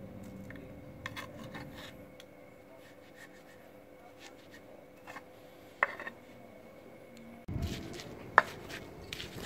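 Stone pestle grinding and rubbing peanut sauce around a stone mortar (ulekan and cobek), with a metal spoon scraping and knocking against the stone, giving a couple of sharp clicks. About three-quarters of the way through it turns to louder rustling as the pestle and spoon toss chopped raw vegetables through the sauce.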